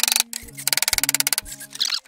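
Background music with held bass notes under a fast, dense rattling beat that stops and restarts.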